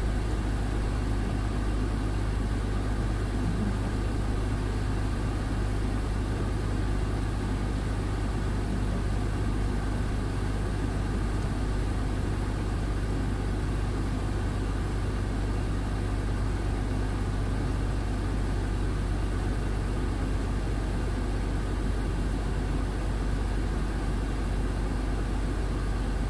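Heavy truck's diesel engine running at a steady, unchanging drone, heard from inside the cab while the truck rolls down a snowy slope.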